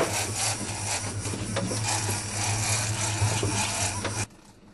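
Loud, steady rushing noise over a low hum from the boat's motors, with a few knocks, cutting off suddenly about four seconds in.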